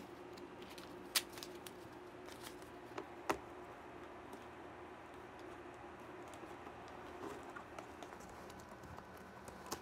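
Faint sounds of tape being handled and pressed down to seal the gap around a nebulizer fitting: a few sharp clicks or snips, one about a second in and two around three seconds in, over a low steady hum.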